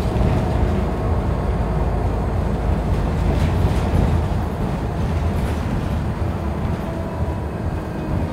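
City transit bus in motion, heard from inside the cabin: a steady low engine and road rumble.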